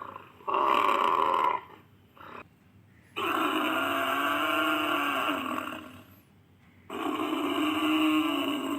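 Calls of a Pelorovis, an extinct giant buffalo, from a sound-effect set: a short call about half a second in, a long call of about two and a half seconds, and a third starting near the end.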